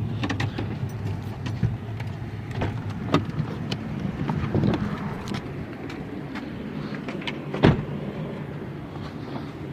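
A road vehicle running with a steady low rumble, with scattered clicks and knocks and one louder knock about three-quarters of the way through.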